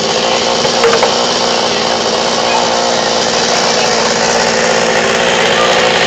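Chainsaw running steadily under load, cutting into a wooden tree trunk.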